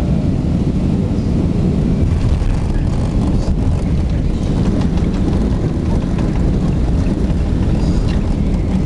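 Cabin rumble of a jet airliner on its landing roll. A loud, steady low roar comes from the wheels on the runway and the engines, with the wing's ground spoilers raised to dump lift.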